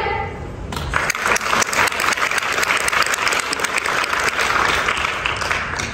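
Audience applause, many hands clapping densely, starting about a second in.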